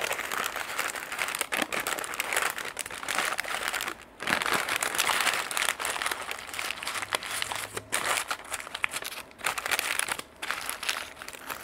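Butcher paper being folded and crumpled by gloved hands as it is gathered into a wrapped bundle: irregular rustling and crinkling, with a short pause about four seconds in.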